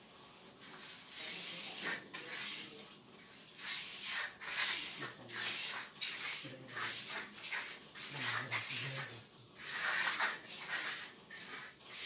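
Steel hand trowel scraping and smoothing over a freshly laid cement floor, in a run of short, irregular strokes.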